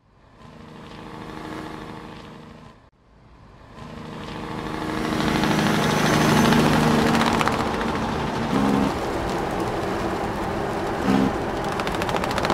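A tractor engine running steadily, heard across cut-together clips: a short break about three seconds in, then it grows louder and runs on with a fast rattle.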